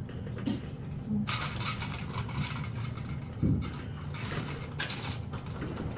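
A kitten brushing against the camera microphone: several short rustling scrapes and a thump over a steady low hum.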